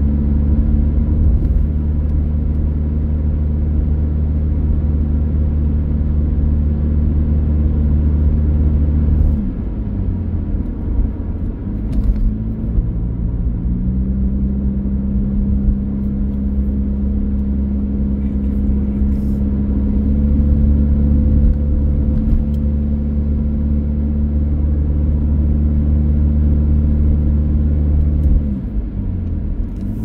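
A vehicle engine running steadily with a deep drone. Its pitch falls about a third of the way in, climbs back a few seconds later, and falls again near the end, as when the vehicle eases off and picks up speed.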